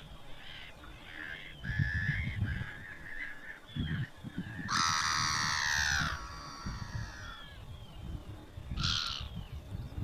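Gulls calling: a chorus of harsh, overlapping calls, with one loud drawn-out call about five seconds in and a shorter loud one near the end, over a low gusting rumble.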